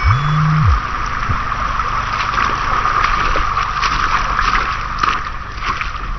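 Rushing river water with irregular splashes, as from wading through a shallow river. At the very start a brief low tone rises and falls in pitch.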